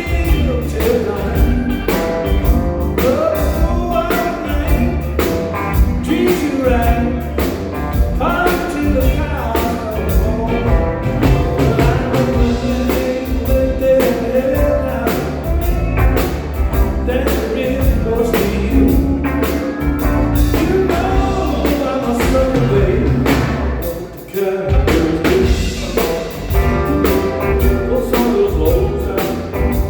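A band playing a song with a singer: vocals over a drum kit and bass, dropping back briefly about 24 seconds in.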